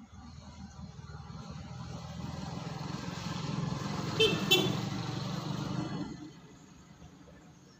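A motor vehicle driving past, its engine growing louder, peaking and then fading, with two short horn toots about four seconds in.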